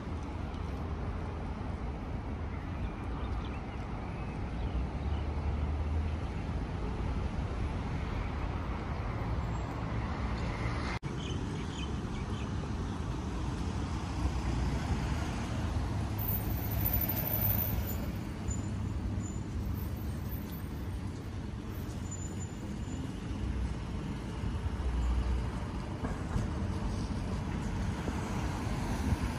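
City street ambience: a steady low hum of road traffic with cars passing, with a momentary dropout about eleven seconds in.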